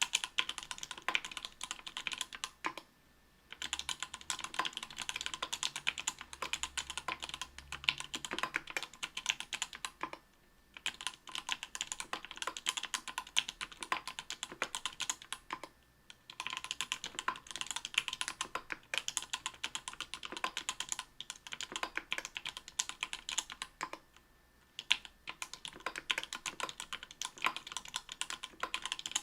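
Typing on an Octagon V3 mechanical keyboard with Everglide Coral Red 67 g linear switches lubed with Krytox 105, on an aluminium plate with GMK keycaps. The keys go down in fast runs of clicks, broken by a few short pauses.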